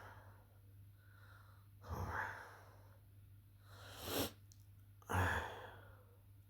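A man with a nasty cough from a throat infection and fever, coughing and breathing hard: three short, harsh bursts over a few seconds.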